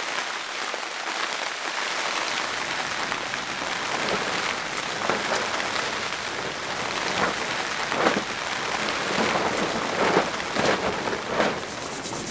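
Steady rain falling on a tarp shelter, a constant hiss with scattered sharper taps, the loudest in the second half, where a spoon knocks against camp cookware.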